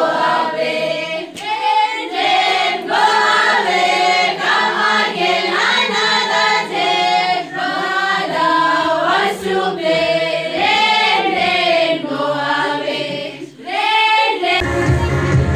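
A group of women singing a rhyme together in chorus. Less than a second before the end, the singing cuts to recorded pop music with a heavy bass beat.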